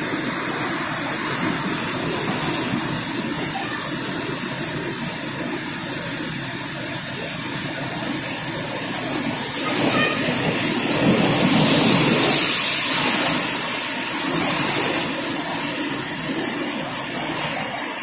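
Sea surf breaking and washing over shoreline rocks, a steady rushing noise that swells louder for a few seconds past the middle.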